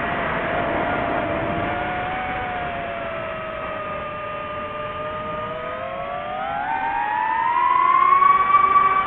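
DJI FPV drone's motors spinning 5-inch Gemfan Hurricane 51466 propellers on prop adapters: a steady whine that sinks slightly, then climbs in pitch and grows louder about seven seconds in as the motors speed up, holding there.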